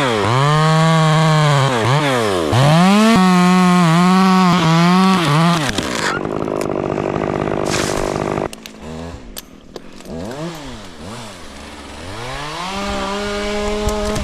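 Stihl chainsaw revving hard in repeated throttle pulls, then bogging into a rough, noisier stretch for about two seconds as it cuts through an oak limb. It drops to a quieter idle with short throttle blips, then revs up again near the end.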